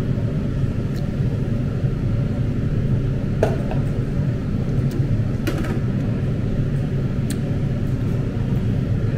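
A steady low rumble of background noise, with a few faint clicks.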